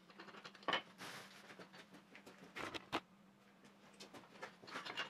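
Light knocks and clatter of wooden strips and a wooden bar being handled and set into a steel glue-up clamping frame, with gloved hands rustling. A sharp click comes under a second in, and two knocks close together just before the three-second mark.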